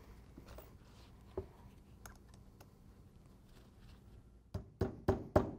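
Hammer driving a nail through a rubber conveyor belt into a wooden plank: a few faint clicks, then about five quick, sharp strikes near the end.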